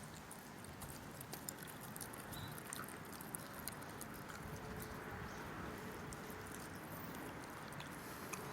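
A dog eating, heard faintly: scattered small wet clicks and smacks of chewing and licking.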